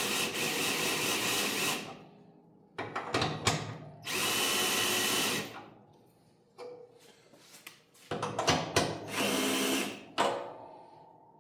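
Cordless power drill running in three bursts of one to two seconds each, with clicks and knocks of tools and hardware in between, as the plow's spring-tension bolts are run in.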